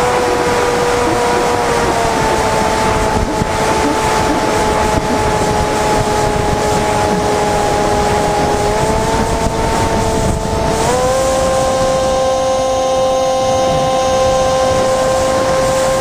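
Onboard sound of the Flinch FPV flying wing's electric motor and propeller whining steadily under a heavy rush of wind over the airframe. The whine dips slightly in pitch about two seconds in, then climbs a little about nine seconds in and higher again about eleven seconds in as the throttle changes.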